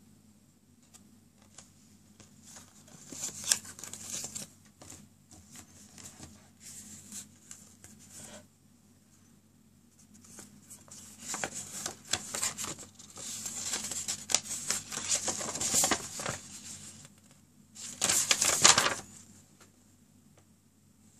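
Paper rustling and crinkling in irregular bursts as a folded leaflet and a printed instruction sheet are handled and unfolded, with the loudest rustle near the end.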